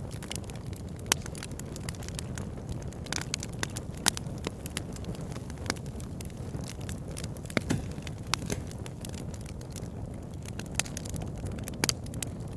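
Campfire burning, the wood crackling and popping in irregular sharp snaps over a steady low rumble, with louder pops about a second in and about four seconds in.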